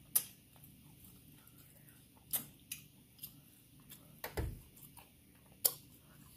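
Close-miked eating of fried chicken: a handful of sharp, separate crackles and mouth clicks as it is pulled apart and bitten, with one low thump a little past four seconds in.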